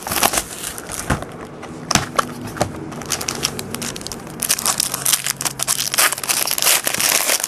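Clear plastic trading-card pack wrapper crinkling and tearing as it is opened by hand, in quick sharp crackles that get denser about halfway through.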